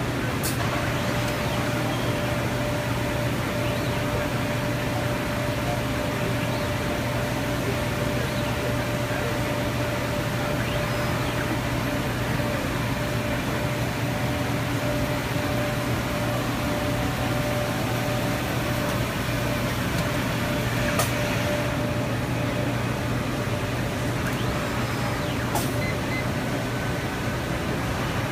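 Steady hum and air-handling noise of circuit-board assembly machinery, with a thin steady tone over it that stops about three-quarters of the way through. A few sharp clicks, one near the start, one where the tone stops and one near the end.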